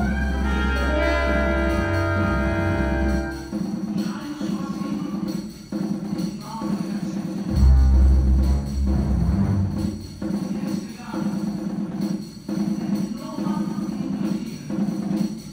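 Live symphony orchestra with piano playing a dramatic film score. A sustained chord holds for the first few seconds, then pulsing rhythmic phrases follow, with a heavy low hit about eight seconds in.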